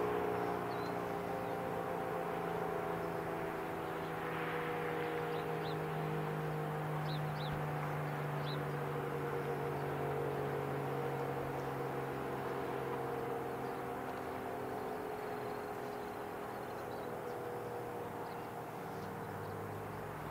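ACA P-50 outdoor warning siren sounding its steady alert tone during a test, several notes held together and drifting slowly a little lower in pitch.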